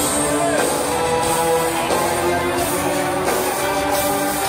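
Live band music played loud through a club's sound system, steady held notes with cymbals washing over the top.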